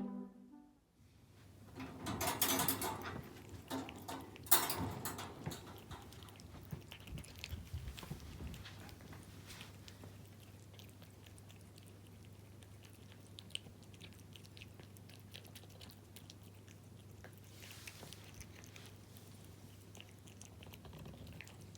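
A cat eating wet food in jelly: close-up chewing, licking and smacking, loudest in bursts a couple of seconds in and again about four and a half seconds in, then settling into steady quieter chewing.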